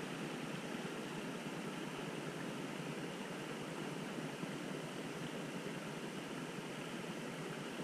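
Steady wind noise on the microphone, an even hiss with no distinct sounds in it.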